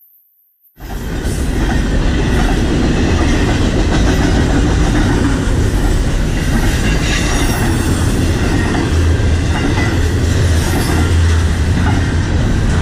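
Freight train cars rolling past close by: a steady, loud rumble of wheels on rail with a faint high wheel squeal over it. The sound cuts in suddenly less than a second in.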